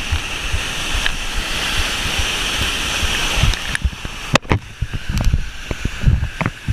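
A large waterfall pouring, a loud, steady rush of water that fades about three and a half seconds in. After it fades, irregular low thumps and knocks of wind and handling on the microphone follow.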